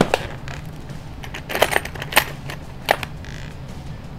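A handful of sharp, irregularly spaced clicks and light knocks from a cordless drill being handled and readied with a hex driver tip.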